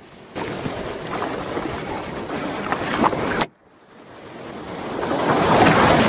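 Rough sea rushing and splashing against a sea kayak's bow. The sound cuts off abruptly a little past three seconds, then builds again to its loudest as a breaking wave washes over the bow near the end.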